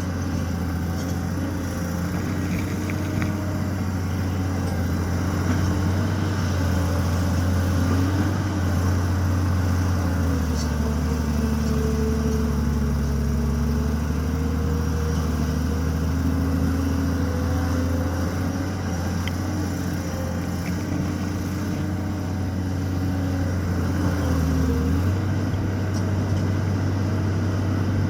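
Tata Hitachi 200EX excavator's diesel engine running steadily. Its pitch sags about ten seconds in and picks back up near the end.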